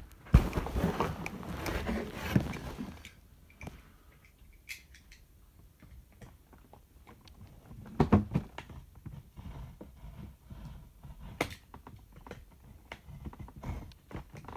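Action-figure packaging being handled and opened: rustling for the first three seconds, then scattered clicks and taps, with louder knocks about eight and eleven seconds in.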